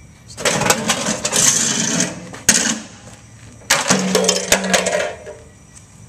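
A microwave oven being smashed on a concrete driveway: two bouts of crashing and clattering metal and glass parts, each about a second and a half long, with a single sharp crack between them.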